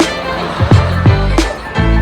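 Loud amplified music with a heavy bass line and a strong kick-drum beat about every three-quarters of a second.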